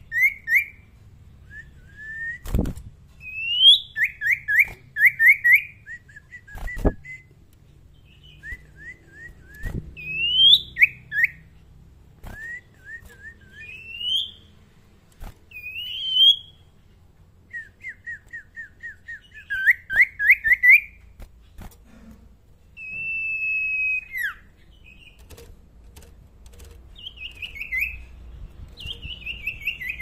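Young caged common iora (cipoh) singing in short bursts: runs of quick slurred chirps and whistles, one long drawn whistle past the middle, with a couple of sharp knocks early on.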